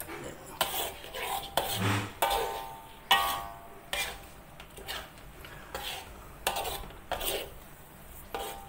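Metal spoon scraping and clinking against a wok while stirring a thick lamb curry paste as it cooks, in irregular strokes about one or two a second, a few of them ringing briefly.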